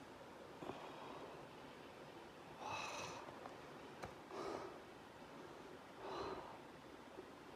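A few short, noisy breaths or snorts from a person close to the microphone, roughly one every second and a half, with a single sharp click about four seconds in.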